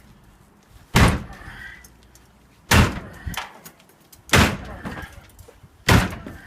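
A sledgehammer striking heavy blows, four hard impacts in a steady rhythm about every second and a half.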